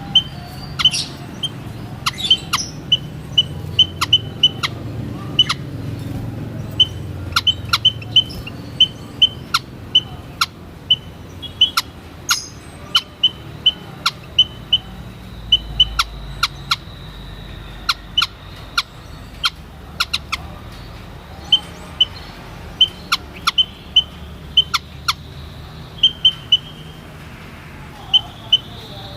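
White-headed munia calling: short, high peeps, often in quick runs of two to five, repeated throughout, mixed with many sharp clicks over a low background rumble.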